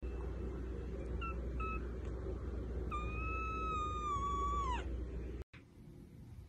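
Kitten meowing: two short faint mews, then one long high meow that drops in pitch at its end.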